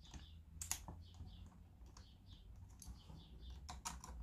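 Faint clicks and scrapes of a screwdriver and copper wire being worked into the plastic screw terminal block of a ceiling rose, with a few sharper clicks about half a second in and again near the end.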